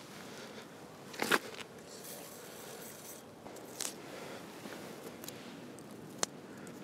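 Light hand-work noise at the motorcycle's sidecar fittings: a few sharp clicks of metal being handled, the loudest about a second in, with faint rustling and scraping between.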